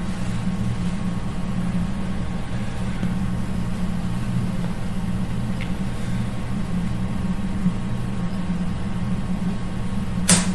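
Steady low hum over a background hiss, with a short click near the end.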